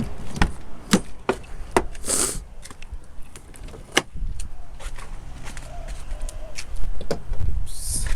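Irregular sharp clicks and knocks, with two brief high hissing rustles, one about two seconds in and one near the end, over a low rumble.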